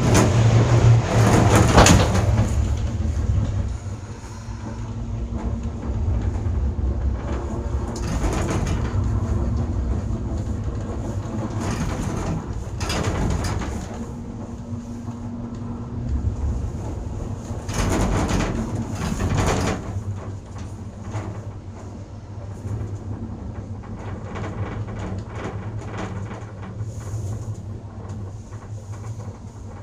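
Gondola lift cabin running along its cable with a steady hum. Loud machinery drone as it clears the station, then rumbling clatter several times as the cabin passes over the tower rollers.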